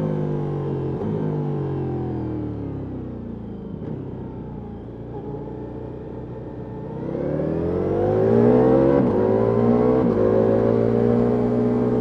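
Ducati Multistrada V4S V4 engine through an Akrapovic exhaust, revs falling as the bike slows on the throttle, then accelerating hard from about seven seconds in, with upshifts cutting the pitch near nine and ten seconds.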